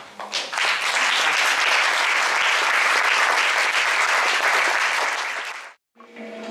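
Audience applauding, cut off abruptly near the end; a hang drum starts ringing with steady, sustained notes just after.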